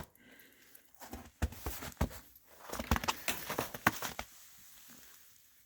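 Close rustling and crackling as a shot pigeon is picked up and handled, a run of irregular clicks and scrapes from about one to four seconds in, then fainter.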